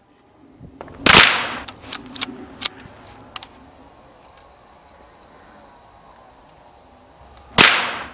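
Two gunshots, about six and a half seconds apart, each a sharp bang with a short fading tail. A few small clicks and knocks follow the first shot.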